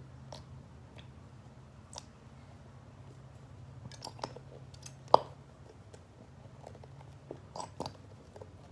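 Small plastic squeeze bottles of white school glue being squeezed and handled: scattered clicks and taps of plastic, with the sharpest click about five seconds in.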